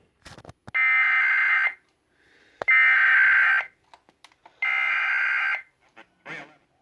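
Emergency Alert System encoder sending its SAME header data: three one-second bursts of a harsh two-tone electronic screech, about a second apart, marking the start of a required weekly test. A few faint clicks fall between the bursts.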